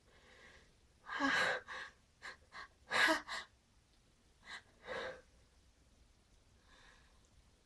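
A person's gasping breaths building up to a sneeze: a string of short breathy gasps at uneven intervals, the loudest about three seconds in, then tailing off to faint breaths near the end.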